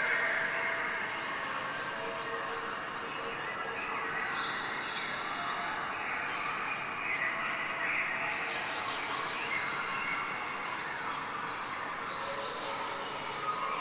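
Steady outdoor background noise with birds chirping.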